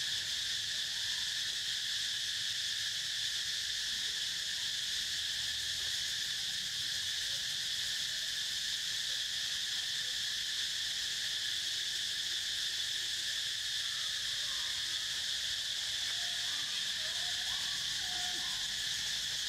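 Steady, high-pitched drone of an insect chorus, unbroken throughout, with a few faint wavering calls near the end.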